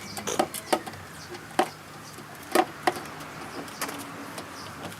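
Scattered sharp clicks and knocks of hand tools and parts being worked during a pickup truck's headlight assembly installation, about six in all, the loudest about a second and a half and two and a half seconds in.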